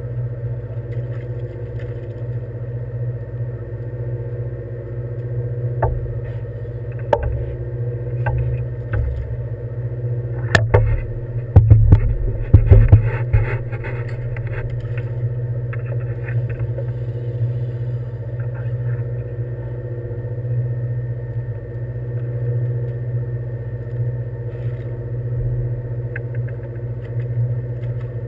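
A boat's engine running with a steady low drone. Scattered knocks, then a burst of loud clattering knocks and rattles about halfway through.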